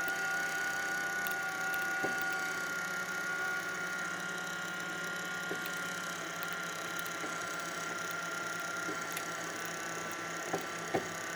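Monoprice MP Select Mini V2 3D printer's stepper motors running with a steady whine as the axis moves down and the extruder feeds filament; a second, lower tone drops out a couple of seconds in.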